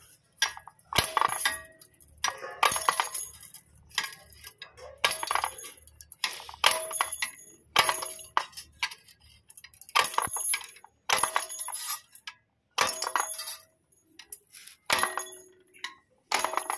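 Steel wire rods cut one after another on a lever rod cutter: a sharp metallic clink with ringing roughly every second and a half, as each cut piece drops onto the pile of rods.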